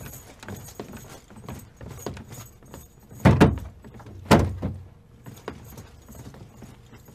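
Footsteps and the clink of soldiers' armour on a wooden plank floor, with small knocks throughout, and two heavy wooden thuds about three and four seconds in.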